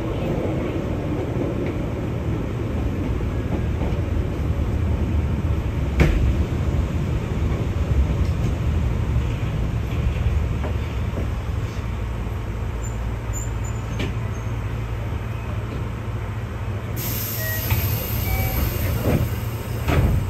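Keihan 600 series train running, heard from inside the car: a steady low rumble of wheels and motors, with a few sharp single knocks from the track.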